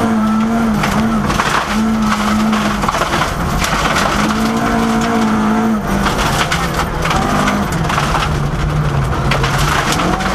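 Mk II Ford Escort rally car's engine running hard at high revs, heard from inside the cabin, with gravel crunching and stones rattling under the car. The revs dip and pick up several times, drop lower about six seconds in, and climb again near the end.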